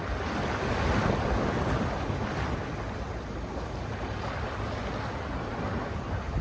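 Sea waves washing onto a beach, with wind rumbling on the microphone. A wave surges louder about a second in, then the surf settles to a steady wash.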